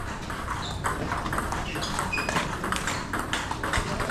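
Table tennis balls clicking off bats and tables at irregular intervals, with a few short high squeaks.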